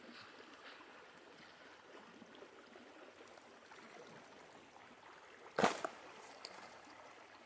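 Creek water running faintly and steadily, with one sharp knock about five and a half seconds in, followed by a couple of lighter clicks.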